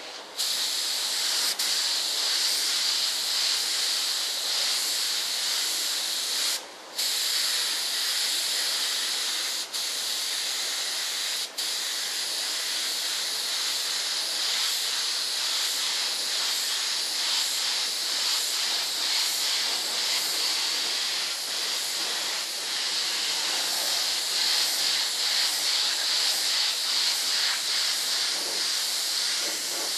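Compressed-air paint spray gun spraying paint, a steady hiss of air and atomised paint. The trigger is let off for a moment about seven seconds in, and there are two very short breaks a few seconds later.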